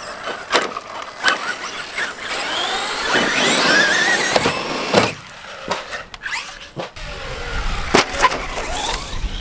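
Small radio-controlled cars driving on pavement: their motors whine up and down in pitch with the throttle, with scattered sharp clicks and knocks.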